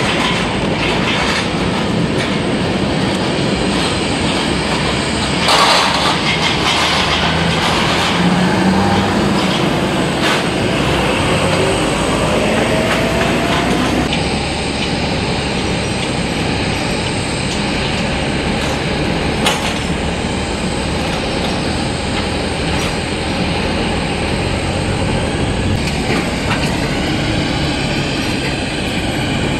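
Jet aircraft engines running with a loud, steady rumble and hiss. A faint rising whine comes in about halfway through, and a wavering high whine near the end.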